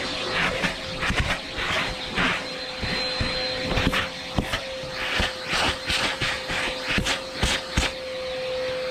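Vacuum cleaner running with a steady motor whine as its nozzle works over car carpet: repeated rushes of suction and many sharp clicks and rattles of grit and debris being drawn up the hose.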